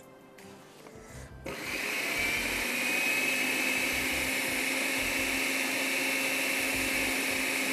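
An electric blender switches on about one and a half seconds in and runs steadily with a whine, grinding basil, garlic, parmesan and oil into pesto.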